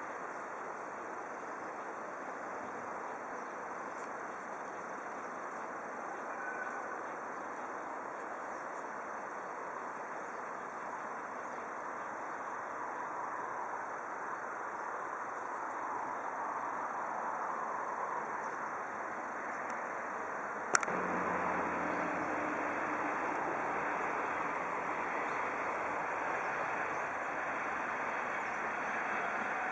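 Distant diesel freight train approaching: a steady low rumble that slowly grows louder. About two-thirds of the way in there is a single sharp click, and after it a low engine hum comes through more clearly.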